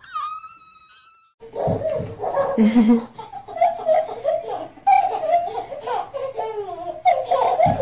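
A baby's single drawn-out crying wail that fades out in the first second. Then, after a short gap, people laughing and giggling, a baby among them.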